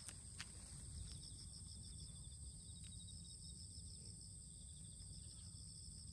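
Faint, steady chirring of insects in the grass, a high pulsing trill, over a low outdoor rumble. A few light clicks in the first second are the Shiba Inu's claws on the paving stones.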